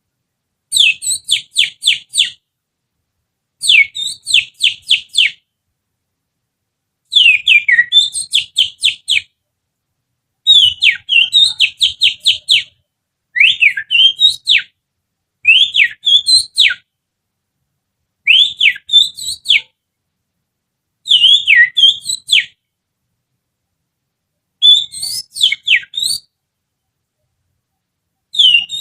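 Little-finger whistling imitating oriental magpie-robin (kacer) song, used as a lure call to provoke a caged magpie-robin. About ten short phrases, each a rapid run of four to six sweeping whistled notes, come every two to three seconds with silent gaps between.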